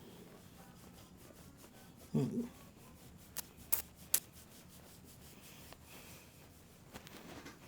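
Hands rubbing and kneading a person's hair and scalp in a head massage: a soft, steady rubbing, with a brief low sound about two seconds in and three sharp clicks a moment later.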